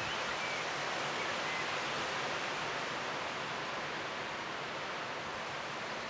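Wind rustling the leaves of a tree: a steady, even hiss of leaves that eases slightly toward the end.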